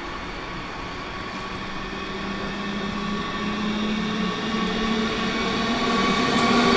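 Siemens Desiro HC electric multiple unit (class 462) approaching. Its running noise grows steadily louder throughout, with a steady electric hum.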